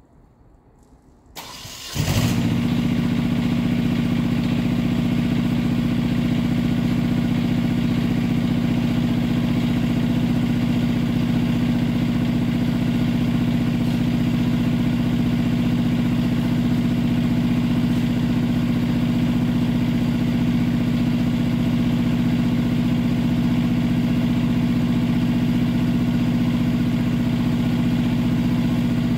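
Engine of a Platform Basket Spider 18.90 tracked spider lift starting about two seconds in, catching at once, then running at a steady, constant speed with a low drone.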